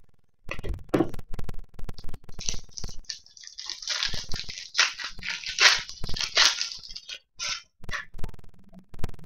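Foil wrapper of an Upper Deck Ice hockey card pack crinkling and rustling as it is handled and opened, with light clicks and taps of cards. The crinkling is densest in the middle stretch, with scattered clicks before and after.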